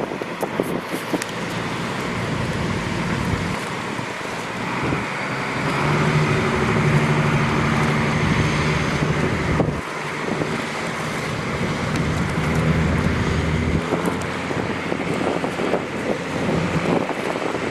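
A motor vehicle's engine hum that grows louder from about five seconds in and fades away around fourteen seconds, over steady wind noise on the microphone.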